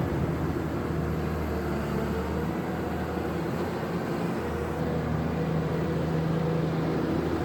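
Cat 320 hydraulic excavator's diesel engine running steadily, a low even drone.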